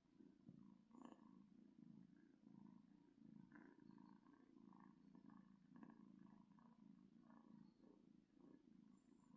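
Small cat purring faintly, a low continuous rumble that swells and eases a little more than once a second.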